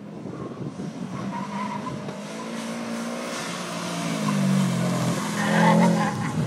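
2007 Subaru Impreza WRX STI's turbocharged flat-four engine revving hard as the car is driven through a cone course, its pitch climbing and dropping with the throttle, with tyre squeal from the turns. It is loudest about halfway through and again near the end.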